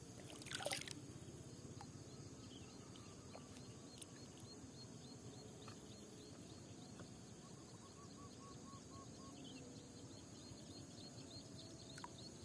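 Faint outdoor ambience: a steady high hum with rows of short, high, repeated chirps from a small animal, about three a second, and a brief rustle about half a second in.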